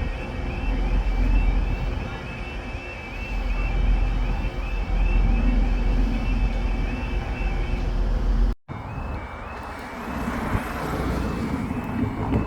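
Level crossing warning alarm sounding over and over in a repeating pattern of high stepped tones, over a heavy low rumble. After a sudden cut about eight and a half seconds in, a crossing alarm carries on as a rushing noise builds.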